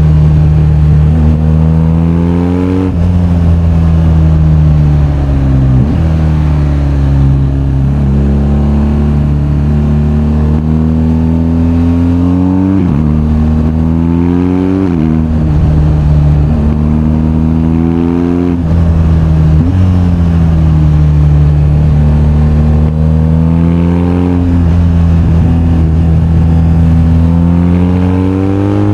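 BMW R1250GS boxer-twin engine under way, its pitch climbing as the bike accelerates and falling again, with several sharp breaks where gears change.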